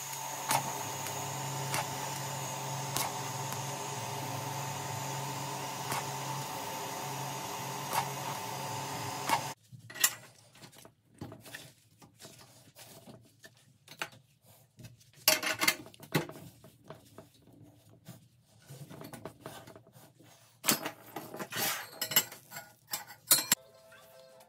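TIG welding arc on a stainless steel exhaust tube joint: a steady buzzing hiss that cuts off about nine and a half seconds in. Then scattered clinks and knocks of the stainless tubing and steel jig being handled.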